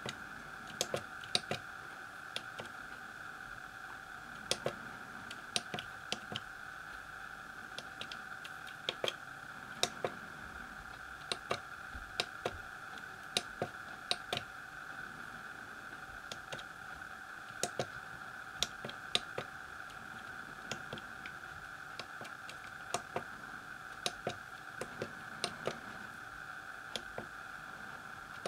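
Keys on an Elektronika MK-161 programmable calculator keypad being pressed one at a time: irregular clicks, a few a second in short runs, as a program is typed in. A steady high whine runs underneath.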